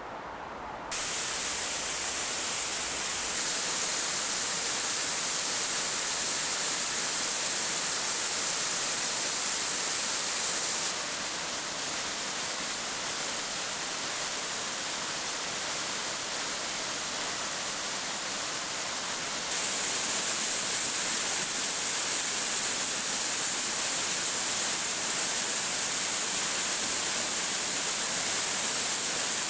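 Steady rush of falling water from a waterfall in a rocky gorge, an even hiss with no separate splashes. It steps up in level about a second in, drops a little around eleven seconds, and steps up again shortly before twenty seconds.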